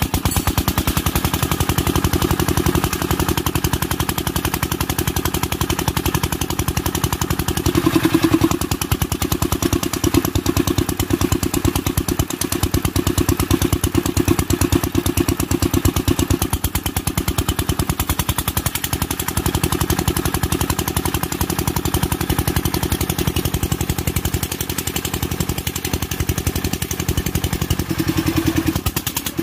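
Kirloskar single-cylinder diesel engine running steadily with an even, fast knocking beat, swelling a little louder briefly about eight seconds in and again near the end.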